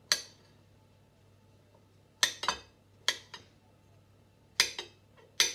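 A chef's knife slicing mushrooms on a ceramic plate: the blade clinks sharply against the plate with each cut, about eight strikes at irregular intervals, several in quick pairs.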